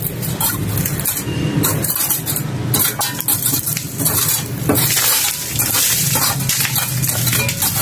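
Small metal mason's trowel chipping and scraping at hardened cement mortar, a quick run of scrapes and knocks with loose bits of broken cement falling.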